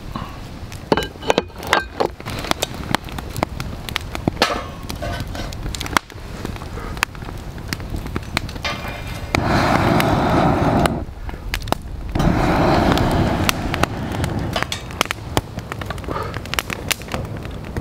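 Wood fire crackling with sharp pops in a fire pit. About halfway through come two loud rushes of noise, each about a second and a half long.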